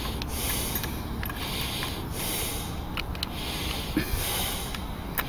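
Handling sounds as a landing net is hooked onto a hand-held scale for weighing: a few small sharp clicks of metal and net frame. Under them runs a soft hiss that swells and fades about once a second.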